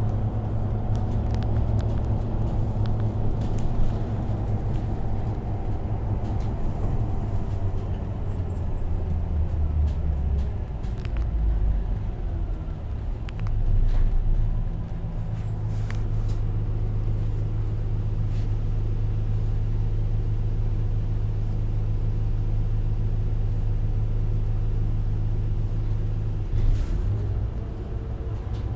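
Diesel engine running steadily, a low rumble with a brief swell in loudness about halfway through and a few faint ticks over it.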